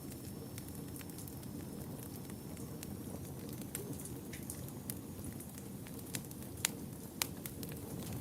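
Wood fire burning in a fireplace: a steady low rumble with irregular crackles and pops, two sharper pops standing out about two-thirds of the way through.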